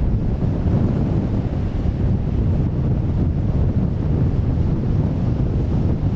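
Strong wind buffeting the microphone, a steady low rumble, over the wash of waves in a rough sea.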